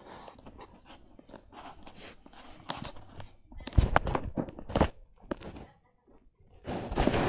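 Rustling and bumping handling noise: fabric rubbing and scraping close to the microphone, with a few louder knocks about four and five seconds in, a brief near-silent gap, then a louder burst of rustling near the end.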